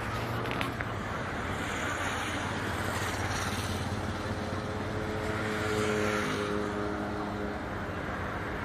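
Outdoor vehicle noise: a steady rumble with a humming engine or motor tone that comes in about halfway through. It is loudest about six seconds in, then fades, like a vehicle passing.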